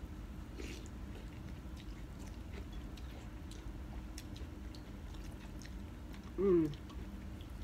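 Eating sounds at a table of noodle soup: chewing and faint light clicks of chopsticks and spoons against ceramic bowls, over a low steady hum. A short voiced sound, falling in pitch, comes about six and a half seconds in.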